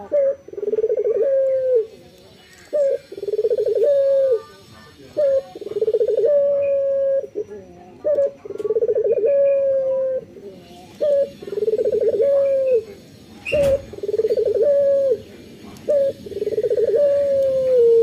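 Male Barbary dove (puter) cooing over and over, about seven calls, each a short note, a rolling purr and a long held coo that drops in pitch at the end. A single sharp knock sounds about two-thirds of the way through.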